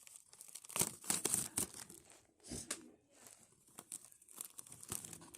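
Small plastic parts bag crinkling as it is torn open by hand, with irregular crackling rustles.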